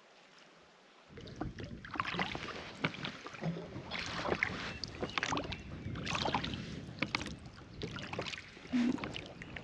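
Water splashing and slapping around a small boat, with repeated splashes about once a second and wind gusting across the microphone.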